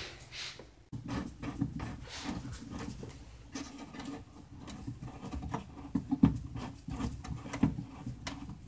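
Screwdriver turning a plastic screw-type fastener under a bumper, a rapid, irregular scraping and clicking that starts about a second in, with a few sharper knocks. The fastener is not coming out.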